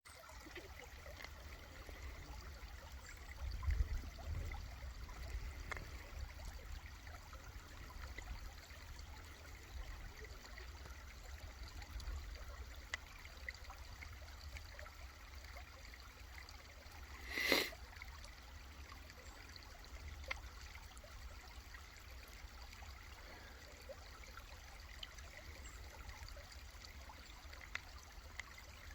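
Gentle stream trickling and gurgling, faint and steady, over a low rumble. A brief louder noise cuts in once, a little past halfway.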